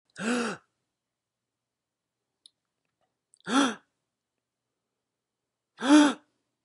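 A person's short voiced gasp, heard three times with silence between; each lasts about half a second, its pitch rising and then falling.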